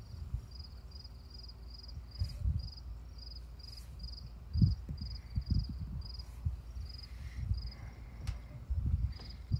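A cricket chirping steadily at about two or three chirps a second, with irregular low thumps and rumble on the microphone.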